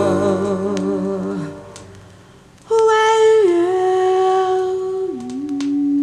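Slow, quiet ending passage of a 1981 jazz vocal song. A sustained, gently wavering chord fades out about two seconds in. After a short gap a single voice hums long held notes, stepping down in pitch twice.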